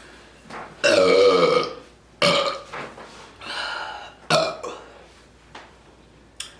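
A woman burping after drinking carbonated Coke Zero: one long, loud burp about a second in, then three shorter burps.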